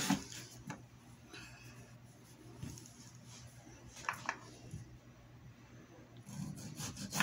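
A few light knocks and handling sounds of a tomato on a plastic cutting board. A little after six seconds in, a serrated steak knife starts sawing through the tomato.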